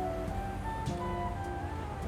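Instrumental background music: a melody of held notes shifting in pitch, with a couple of faint clicks.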